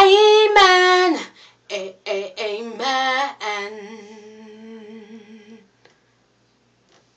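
A woman singing gospel a cappella: the closing "amen" phrases, a few loud sung notes, then a softer held note with vibrato that fades out about two-thirds of the way through. The voice rings in a small tiled room.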